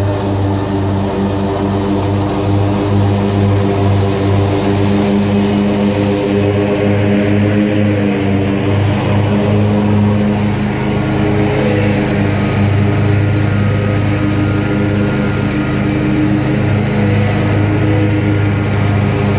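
Commercial Bobcat zero-turn mower's engine running steadily at an even pitch with only small wavers.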